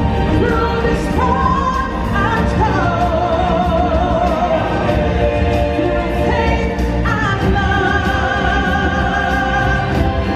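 Music from a live stage show: a singer holds long, wavering notes over a full backing track with a steady low beat, joined by a choir.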